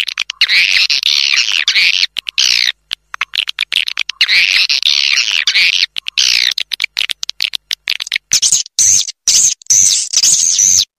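Recorded swiftlet calls played as a swiftlet-house lure track: dense, fast chittering twitters, repeatedly cut off by brief silences. Near the end the calls sit higher and come in shorter, choppier bits.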